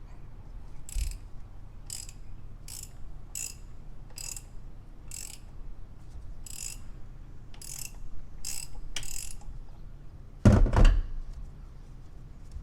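A 3/8-inch ratchet with a 24 mm socket working the oil filter housing cap loose: about ten short bursts of pawl clicking, one every second or less, then two loud knocks close together near the end.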